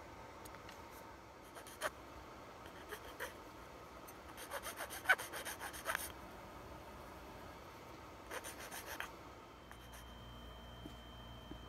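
Hand filing on a model part: a few separate scrapes, then a quick run of about eight short file strokes around the middle, about five a second, and another short run of strokes later. A faint steady high tone comes in near the end.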